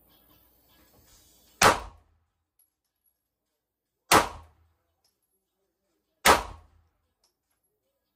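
Three single shots from a Glock 43X MOS 9mm subcompact pistol, fired slowly about two to two and a half seconds apart, each a sharp crack with a short echo.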